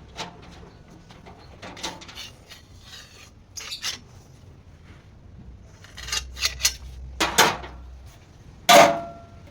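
Metal pieces clinking and clanking as they are handled: a scatter of sharp knocks, the loudest near the end ringing briefly like struck steel.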